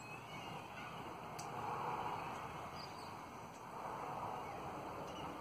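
Twenty-eight parrots (Australian ringnecks) chattering and calling from close by, with a brief click about a second and a half in.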